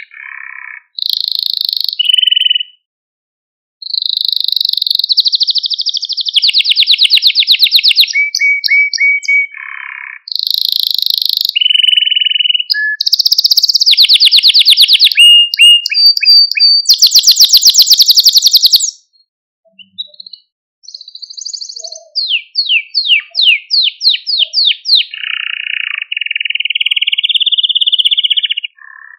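Male domestic canary singing a long song made of rolling trills. Each phrase is a quick run of repeated notes at its own pitch, some held and buzzy, others a fast rattle. There are short breaks about three seconds in and again near twenty seconds.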